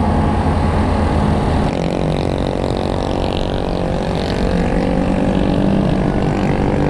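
Classic Vespa scooter's two-stroke engine running steadily under way, with road noise. About two seconds in, a denser, evenly pitched engine drone joins and carries on.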